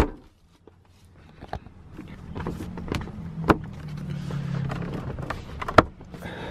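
Yeti hard-sided cooler being handled: sharp plastic knocks and clicks of its lid and rubber latches, the loudest right at the start and a few more spread over the following seconds.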